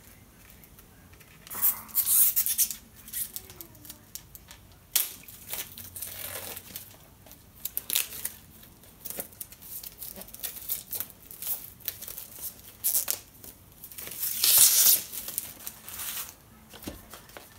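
Packaging of a Blu-ray box set being torn and handled: plastic wrap and cardboard rustling and tearing. There are two loud rustling bursts, about two seconds in and again near the end, with smaller scrapes and clicks between them.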